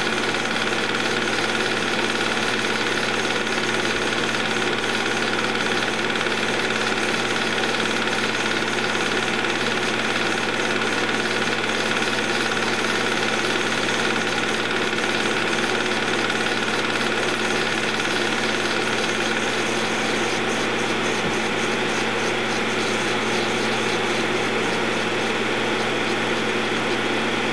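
Movie projector running, very loud and steady, with a constant hum through its mechanical noise.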